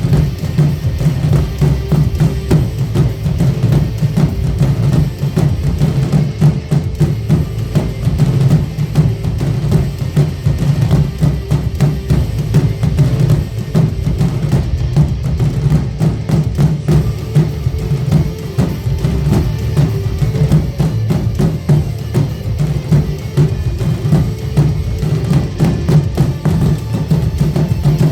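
Loud music carried by deep, booming drums and percussion, with most of its weight in the low bass.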